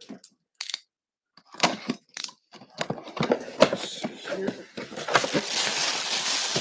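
A cardboard box being opened with a few sharp knocks and scrapes, then a plastic bag around a football crinkling loudly and continuously from about three seconds in as it is handled and pulled out.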